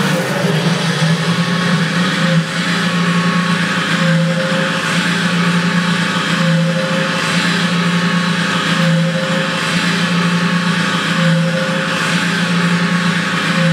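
1:6 scale Armortek Sherman tank model running on a stand: a steady, loud engine-like drone that swells about every two seconds.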